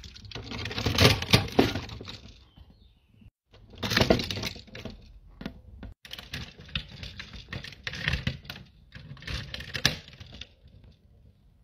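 Hard plastic parts of a combining Power Rangers robot toy clicking and rattling as fingers handle and press its pieces. The sound comes in several bouts of clicks, with a short pause about three seconds in.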